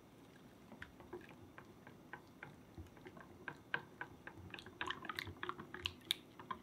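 Silicone-coated balloon whisk beating egg yolk, milk and oil in a glass bowl: light, irregular clicks and splashes of the whisk against the glass and the liquid, coming quicker and louder toward the end.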